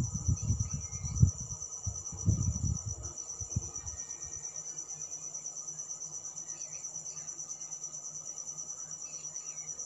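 Crickets chirping in a steady, fast, pulsing high trill. A few low, muffled thumps and rumbles come in the first four seconds.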